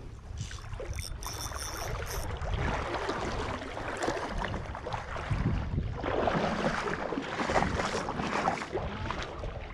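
Wind rumbling on the microphone, with splashing and crunching steps as a person wades out of shallow water onto a coral-gravel beach. The crunching is loudest a few seconds before the end.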